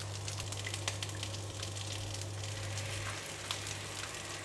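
Teriyaki sauce thinned with water sizzling and beginning to bubble in a hot nonstick pan as a silicone spatula stirs it, a steady hiss full of fine crackles. A low hum runs underneath and fades about three seconds in.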